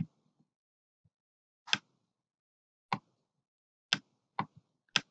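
Computer mouse clicks, about six sharp, separate clicks at irregular intervals, coming closer together near the end, as drawing strokes are pressed and released.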